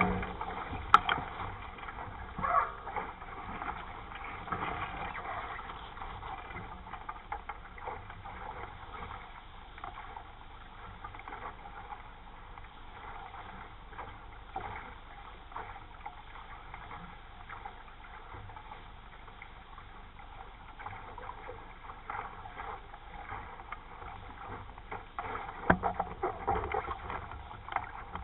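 420 sailing dinghy under way: water rushing and splashing along the hull, with louder splashes or knocks about a second in and again near the end.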